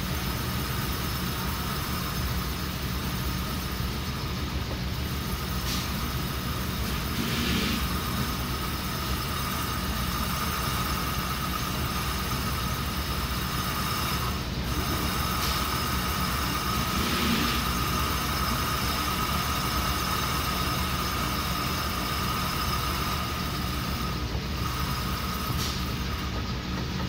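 Metal lathe cutting down an alternator's aluminium drive-end frame, the spindle and chuck running steadily while the tool takes a cut. A steady high tone runs over a low machine rumble, with a few brief hissy swells of the cut.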